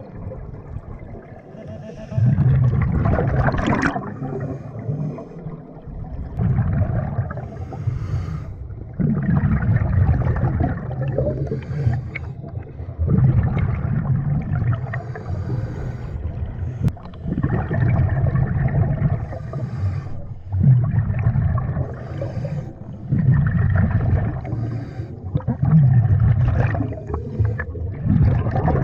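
Scuba diver breathing through a regulator underwater: exhaled bubbles gurgling out in bursts every few seconds, between quieter inhalations.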